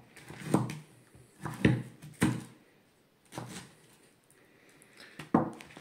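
Kitchen knife chopping pineapple slices on a wooden cutting board: about five separate knocks of the blade onto the board, spaced irregularly.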